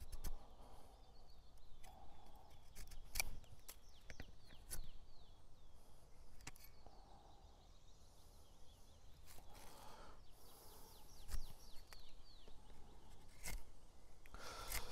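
Hunting knife shaving curls off a fresh green stick: a series of short cuts and clicks, a second or more apart, with soft rustles in between. Birds chirp faintly in the background.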